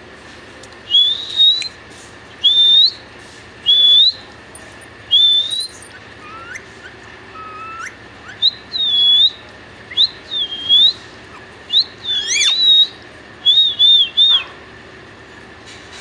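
Young rose-ringed parakeet whistling: a string of short, high rising whistle notes, four evenly spaced at first, then a few lower notes and a quicker run that ends in a wavering trill.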